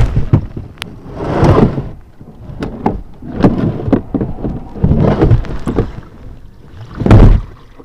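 Water splashing and rushing in repeated surges, about every one and a half to two seconds, with sharp knocks in between, as from kayak paddle strokes and water against the boat.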